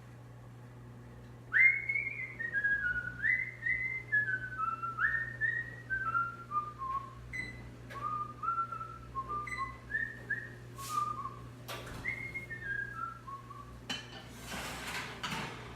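A person whistling a tune, short notes in phrases that mostly step downward in pitch, starting about a second and a half in. A couple of sharp clicks come partway through, and a short burst of rustling noise near the end.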